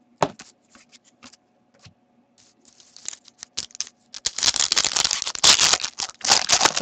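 Faint ticks and taps of trading cards being handled, then from about four seconds in a hockey card pack's plastic wrapper is torn open and crinkled loudly.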